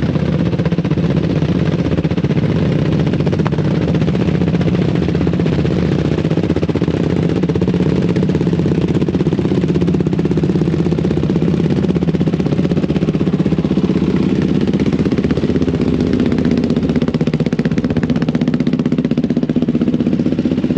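Sport ATV engine idling steadily, with a fast, even beat.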